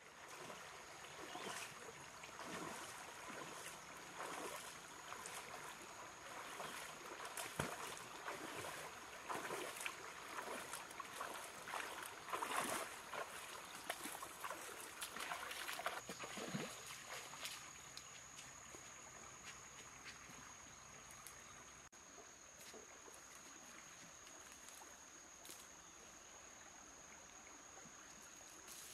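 Water splashing as a person wades through a shallow stream, with irregular splashes and sloshes through the first half. About halfway through the splashing dies down, leaving faint flowing water and a steady high tone.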